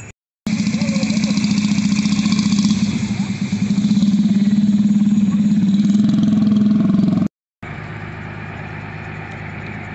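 Vehicle engine idling close by, loud and steady with a fast low pulse. It cuts off abruptly about seven seconds in, and after a brief gap a quieter, steady engine idle follows.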